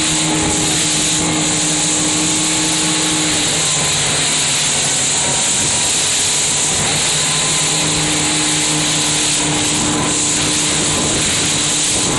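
Motorboat engine of a rigid inflatable boat running steadily at speed, a constant drone under a loud rushing hiss of wind and water. Its higher tone fades for a few seconds in the middle and returns.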